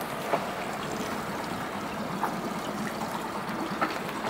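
Water lapping and trickling against the hull of a small inflatable dinghy, with a few light knocks.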